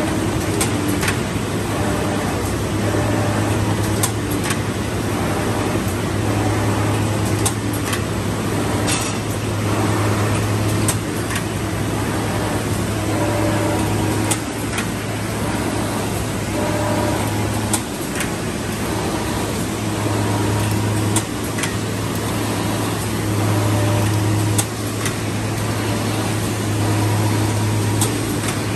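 Paper-sheet collating machine running: steady mechanical clatter and whir with a low hum that drops out and comes back several times, and occasional sharp clicks.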